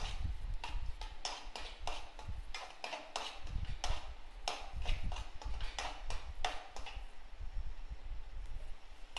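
Metal spoon clacking and scraping against a metal kadai while stirring sliced onions frying in oil. The knocks come a few times a second and thin out near the end.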